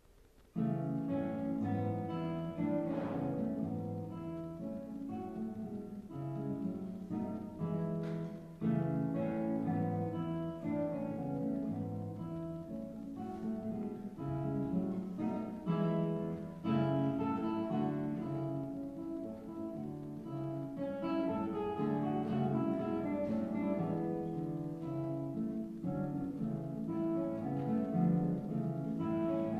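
Solo classical guitar playing a classical piece, starting about half a second in: plucked bass notes under chords and a melody line.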